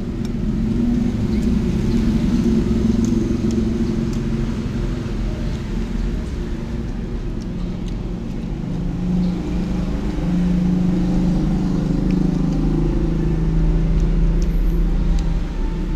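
Steady low rumble of motor vehicle engines, with a drone that drifts up and down in pitch and swells a few times, and a few faint clicks.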